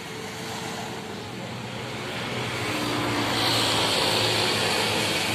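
A steady engine drone with a low hum that grows louder through the second half, joined by a rising hiss near the end.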